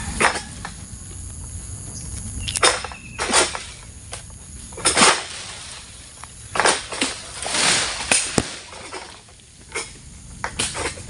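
A Cap 111 long-pole sickle (egrek) cutting in the crown of an oil palm: a string of irregular rustling, scraping strokes as the blade is pulled through fronds and short fruit-bunch stalks, with the fronds shaking.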